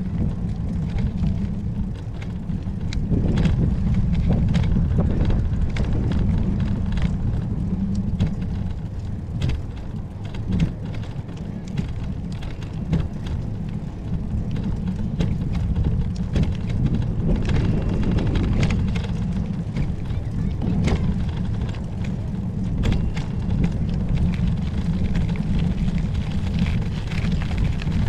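Wind buffeting the microphone during a bicycle ride: a steady low rumble, with irregular knocks and rattles throughout.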